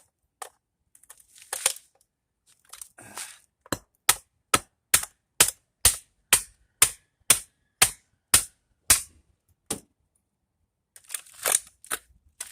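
A plastic housing being struck hard and repeatedly to break it open and free the magnet inside: a few scattered knocks and scrapes, then a steady run of about a dozen sharp cracking blows, roughly two a second, that stops near the end.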